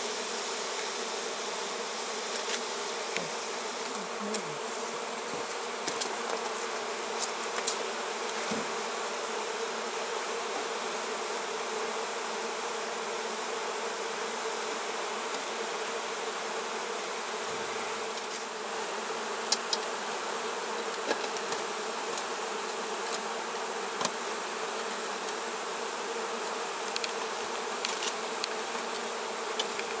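A colony of honeybees buzzing steadily around exposed honeycomb, a continuous hum holding one pitch, with scattered light clicks.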